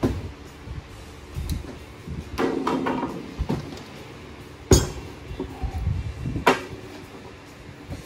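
Wooden hive box knocking and scraping on a wooden workbench as it is turned around and set down: a string of thumps with a rattling scrape about two and a half seconds in, and the sharpest knock a little under five seconds in.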